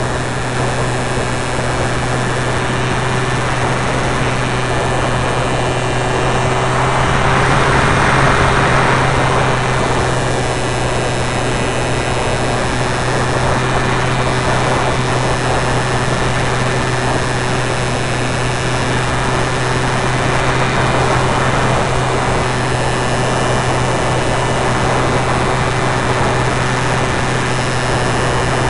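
Radio-controlled model airplane's motor and propeller running steadily in flight, picked up close by the onboard camera, with a steady low hum under a rushing noise of the airflow. The rushing swells several times, loudest about eight seconds in.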